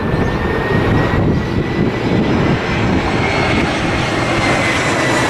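Jet airliner engines running loud and steady, a dense rushing noise with a high whine that rises slightly in pitch.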